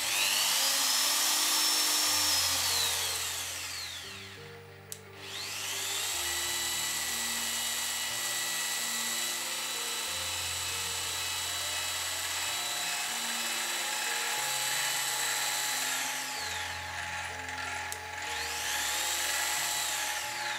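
Drill press with a brushed motor running with a loud high whine. It spins up, slows about three seconds in, comes back up to a steady speed, then slows and speeds up again near the end. A brushed motor is louder than the brushless one even at minimum speed.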